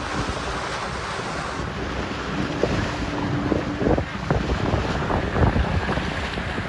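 Wind buffeting the microphone over the rush of sea water around a boat, with uneven low thumps.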